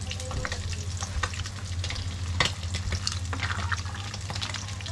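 Small fish frying in oil in a pan, crackling and spitting with scattered sharp pops, over a steady low hum. Near the end, a plastic ladle stirs a pot of soup.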